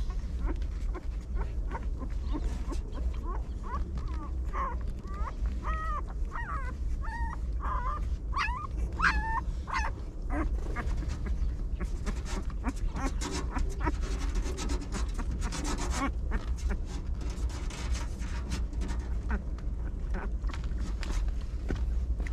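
Young puppies whimpering in short, high squeaks, most of them in the first half, with rustling and a steady low rumble underneath.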